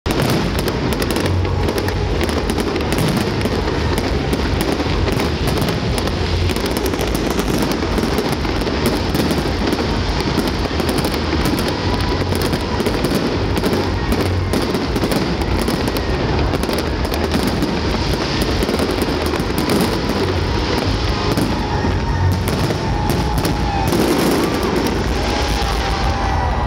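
Aerial fireworks display at full intensity: a dense, unbroken barrage of bursting shells and bangs, with no pause in the firing.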